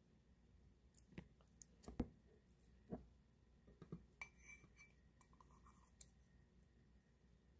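Faint, scattered clicks and taps of wooden chopsticks against a ceramic bowl and plastic food containers while picking up and eating tofu. The sharpest tap comes about two seconds in, and a light ringing clink follows a little after four seconds.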